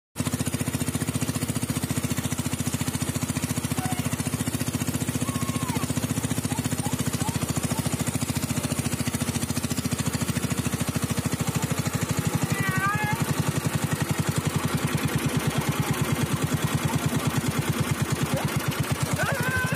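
Small river boat's motor running steadily under way, a fast even beat of firing pulses that swells slightly in the second half. A few brief, wavering high-pitched calls sound over it.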